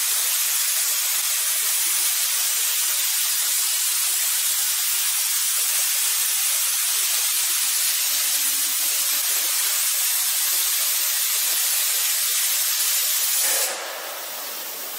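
Robot-arm plasma cutting torch cutting through a steel hollow section, a loud, steady hiss of the cutting jet. Near the end it drops to a softer hiss as the cut finishes.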